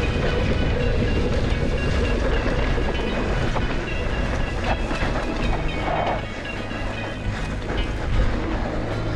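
2020 Norco Range VLT electric mountain bike rolling fast down a rough dirt trail: a steady rumble of tyres on the ground with a continuous rattle and clatter from the bike.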